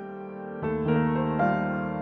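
Slow, gentle piano music with sustained chords; a fuller chord comes in about half a second in.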